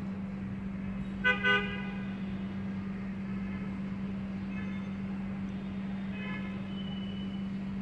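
Vehicle horns honking in street traffic: two short toots about a second and a half in, the loudest sounds, then fainter horns later. A steady low hum runs underneath.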